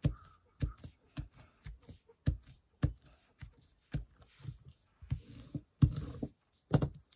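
A series of soft knocks on a tabletop, about two a second, with short bursts of paper rustling: paper being pressed and handled by hand over damp fabric lace to print its pattern.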